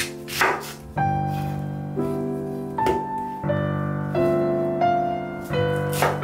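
Background piano music, over which a knife cuts through an onion onto a wooden cutting board three times, about half a second in, near three seconds and at the very end.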